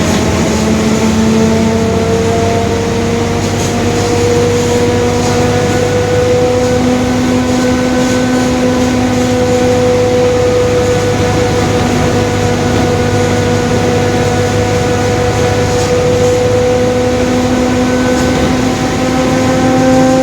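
Mercedes-Benz OF-1721 bus under way: a steady low engine hum with a droning differential whine on top, its tones climbing slowly as road speed builds.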